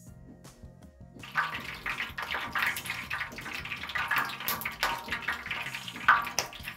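Hot oil crackling and sizzling in a metal roasting pan on the stove, starting abruptly about a second in, with many sharp little pops over the hiss; the pan is heated for searing a chuck roast.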